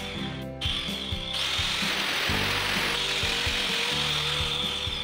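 Handheld angle grinder with a cutting disc running and cutting into a tiled concrete countertop: a steady, loud, high-pitched whine with gritty cutting noise. It drops out briefly about half a second in, then resumes. Background music plays underneath.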